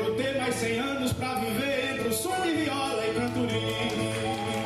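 Nordeste repente: a male voice singing an improvised verse over strummed viola (Brazilian ten-string guitar).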